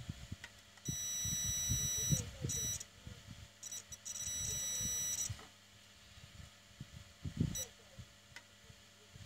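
A DT9205A digital multimeter's continuity buzzer beeps while its probes touch points on a modem circuit board, showing a low-resistance path. It gives a long beep about a second in, two short blips, a second long beep broken by brief drop-outs, and one short blip near the end.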